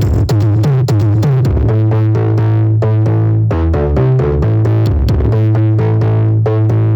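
Electronic dance music with a drum machine beat, a heavy steady bass line and synthesizer chords, played loud over a mobile disco sound system during a sound check.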